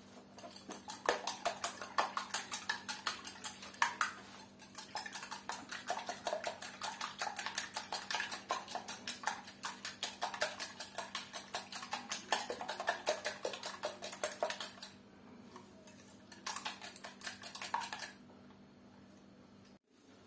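Wire balloon whisk beating eggs in a glass bowl, the wires clicking against the glass several times a second. It stops about fifteen seconds in, then goes again briefly.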